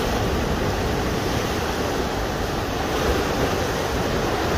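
Rough sea surf churning and surging against a rock cliff: a steady rush of breaking water.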